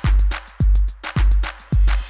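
Electronic background music with a heavy, steady kick drum, about two beats a second, and crisp high percussion between the beats.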